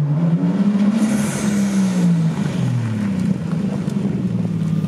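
Car engine revving: the pitch rises over the first second, falls back over the next second or so, then holds steady.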